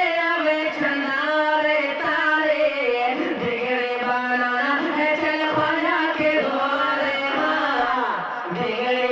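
A man singing a devotional Urdu song (a manqabat to Khwaja) solo into a microphone. He holds long, wavering notes and slides down in pitch near the end.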